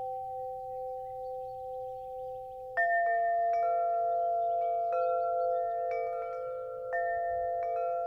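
Bell-like chime tones: two notes hold and ring, then about three seconds in a cluster of new notes is struck and rings on, with further single notes struck every second or so. Faint bird chirps sound in the background early on.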